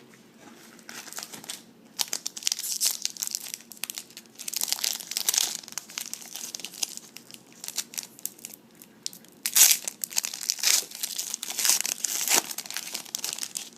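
A trading card pack's wrapper being torn open and crinkled by hand, in irregular bursts of crackling, the loudest about nine and a half seconds in.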